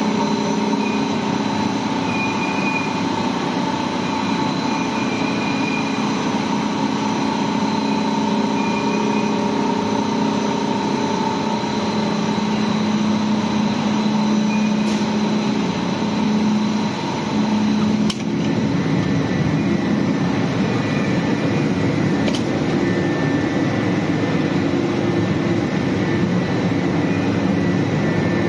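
Biomass-fired steam boiler plant running: a loud, steady machinery drone with several held tones over a dense hiss. About 18 seconds in there is a click, and the pitch of the drone shifts slightly after it.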